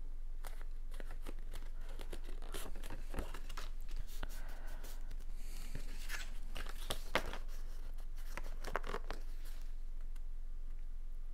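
Cardstock being handled, folded and pressed flat by hand on a cutting mat: scattered rustles, crinkles and light taps, with the sharpest click about seven seconds in.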